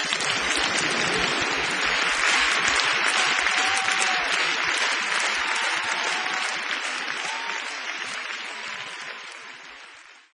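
Audience applauding at the end of a song, a dense steady clapping that fades out near the end.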